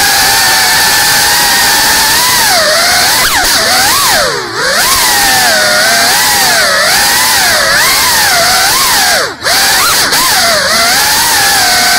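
GEPRC Cinelog 35 cinewhoop's brushless motors and ducted propellers whining, the pitch rising and falling constantly with the throttle. The sound dips briefly about four and a half seconds in and cuts out for an instant about nine seconds in as the throttle is chopped.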